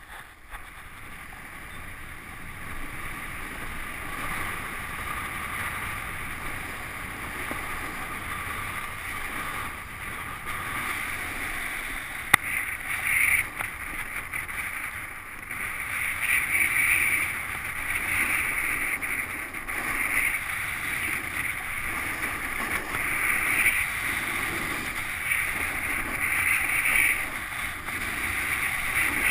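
Wind rushing over the microphone of a skier's camera, with skis hissing over packed snow on a downhill run; the hiss swells and fades in waves through the second half as the skier turns. A single sharp click about twelve seconds in.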